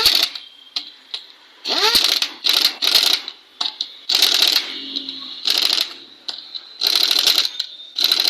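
Hand tools and metal motorcycle engine parts being worked, in a series of short clicking, rasping bursts about once a second; a couple of them carry a quick rising scrape.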